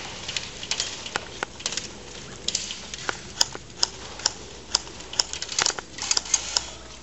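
Airsoft guns firing: scattered sharp clicking pops and short rapid bursts, irregular, some louder and nearer than others.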